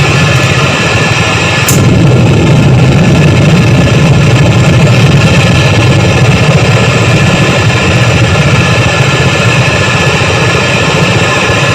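Harsh noise music: a loud, dense, unbroken wall of distorted noise with a heavy low rumble and steady buzzing tones above it, and a brief high hiss about two seconds in.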